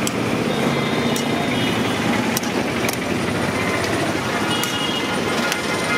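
Steady roadside traffic noise, with a handful of sharp metallic clinks from a steel spoon knocking against a large steel pan as sprouts are stirred.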